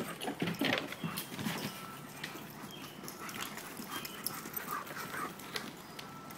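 German shepherd dogs at rough play, with dog sounds, scuffling and rustling on the woodland floor, loudest in the first second and a half.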